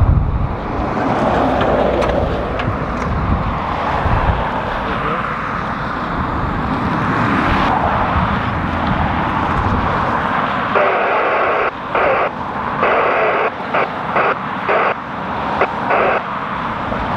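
Airbus A320-family airliner's twin jet engines running as it taxis, with strong gusty wind buffeting the microphone for the first half.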